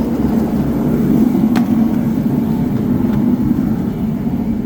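An engine running steadily with a low, even rumble, and a single sharp click about one and a half seconds in.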